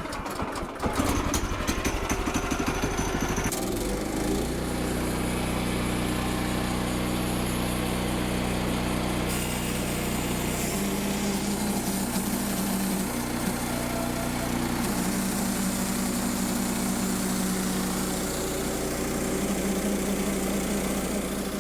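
Small gasoline engine of a Woodland Mills portable bandsaw sawmill coming up to speed in the first few seconds, then running steadily as the blade cuts through a log, its note shifting slightly under the load.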